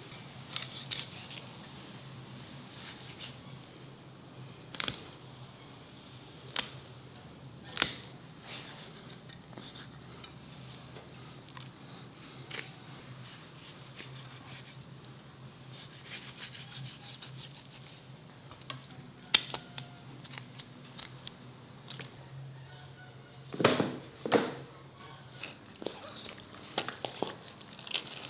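Knife filleting a large silver carp on a wooden cutting board: quiet slicing and scraping, broken by scattered sharp taps and knocks of the blade and fish on the board, with a louder cluster of handling knocks a little before the end. A steady low hum runs underneath.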